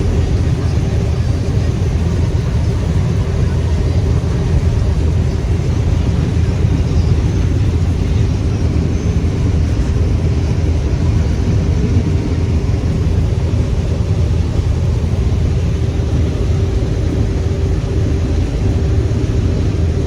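Combine harvester running steadily: a deep engine rumble with a steady hum on top.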